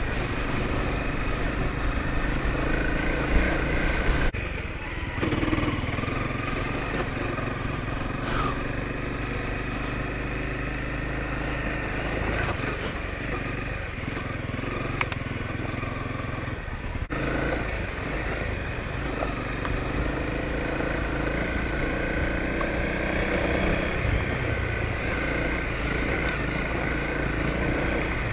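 Honda CRF250L's single-cylinder four-stroke engine running at a steady cruise on a dirt trail, with a rushing noise over the engine note. The sound changes abruptly twice, about four seconds in and again around seventeen seconds.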